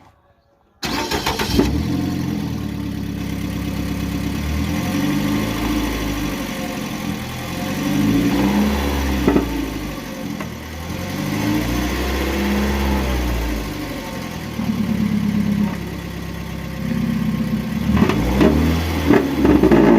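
Car engine starting about a second in, then running with the revs rising and falling several times, with a few sharp clicks. This is the start-up noise that has appeared since the car took a knock.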